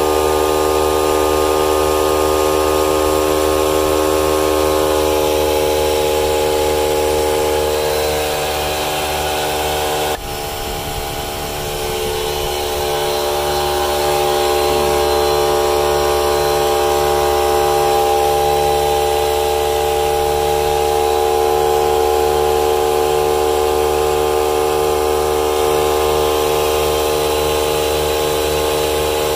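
Ryobi 18V ONE+ cordless air compressor running steadily, a droning motor and pump hum with an airy hiss, as it fills a truck tyre through its hose and clip-on air chuck. The level dips briefly about ten seconds in, then the drone carries on.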